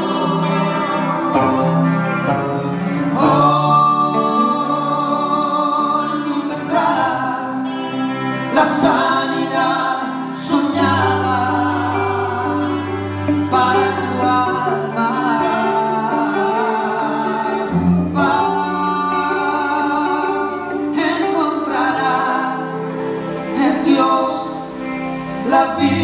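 Live rock band playing a Christian song: electric guitars, electric bass holding long low notes, and drums with a few cymbal crashes, under a melodic lead line.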